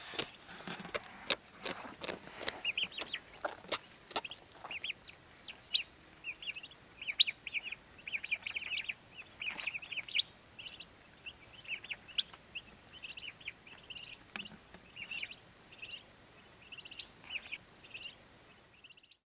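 Young turkey poults peeping: a steady stream of short, high chirps from several chicks, with sharp clicks and rustles in the first few seconds.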